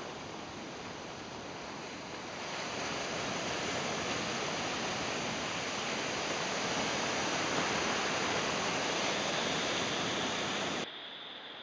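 Ocean surf breaking and washing in as a steady rush of noise, swelling louder about two and a half seconds in and cutting off abruptly to a quieter wash near the end.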